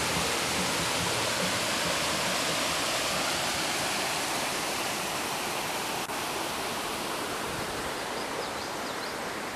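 Spring water rushing down a mossy rock cascade: a steady, even rush of water, with a single sharp click about six seconds in.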